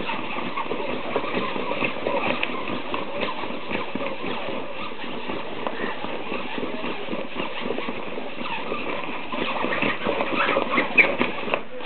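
A cat kneading the fabric of a play tunnel with its front paws, a steady rapid scratching and rustling of claws on cloth, with a few louder scratches near the end.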